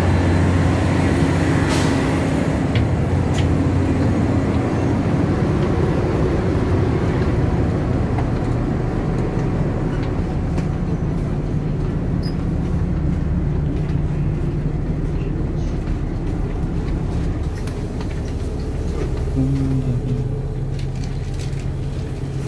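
A DR2800 diesel multiple unit's underfloor diesel engines idling while the train stands, heard as a steady low drone inside the passenger car. The drone's pitch shifts slightly a couple of times.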